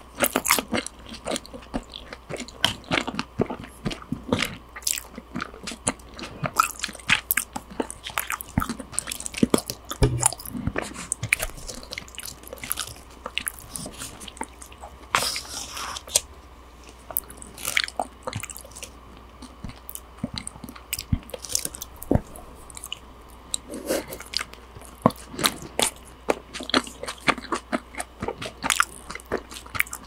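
Close-miked chewing and biting of a raw-fish rice bowl (salmon and tuna sashimi over rice, with pickled ginger): wet mouth clicks, smacks and occasional crunches, irregular and without pause.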